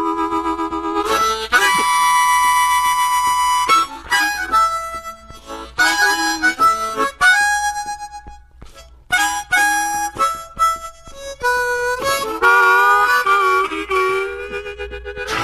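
Unaccompanied blues harmonica played between sung lines: bent single notes and chords, with a long held chord about two seconds in and a brief pause around eight seconds.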